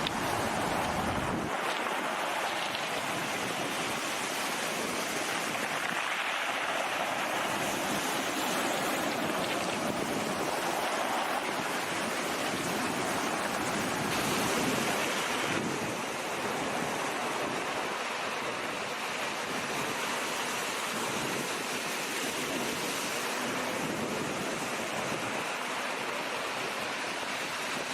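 Sea waves washing in and wind buffeting the microphone: a steady rushing noise that swells and ebbs slowly, loudest about halfway through.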